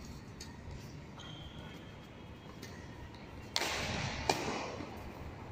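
Badminton racket hitting a shuttlecock with a sharp smack a little after four seconds in, just after a sudden burst of noise from the court; before that, only low hall sound.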